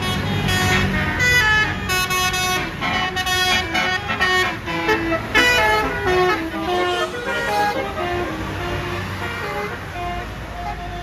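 Bus's multi-tone basuri 'telolet' air horn playing a melody of short notes stepping up and down in pitch, over the low rumble of the bus engine.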